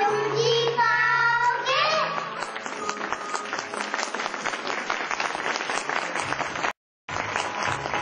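A group of young children singing ends about two seconds in and gives way to an audience clapping. The sound cuts out for a moment near seven seconds, then the clapping resumes.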